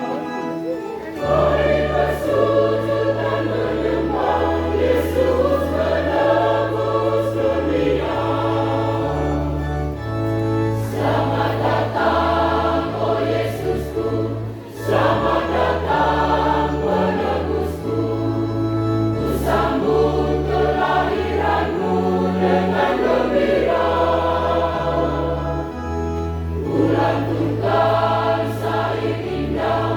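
Parish choir singing in parts over held low bass notes that change every second or two.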